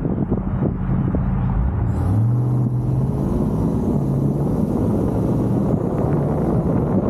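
Car engine idling at a stop, then rising in pitch as the car pulls away about two seconds in and running on under acceleration, with road and wind noise growing as it gets moving.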